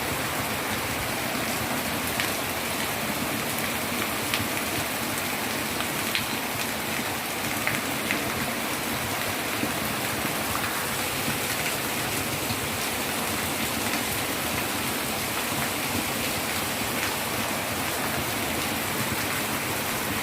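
Heavy monsoon rain pouring down steadily, with a few sharper drop hits standing out now and then.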